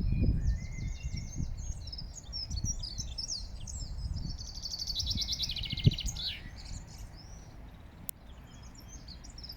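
Several small songbirds chirping and singing, with a fast rattling trill twice, the longer one about four to six seconds in, over a constant low rumble. A single thump sounds about six seconds in.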